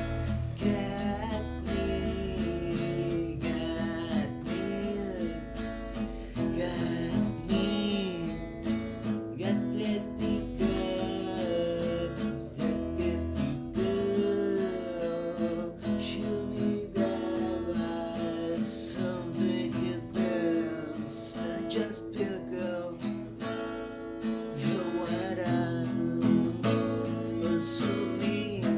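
Guitar music, plucked and strummed, with a melody line that slides up and down in short phrases.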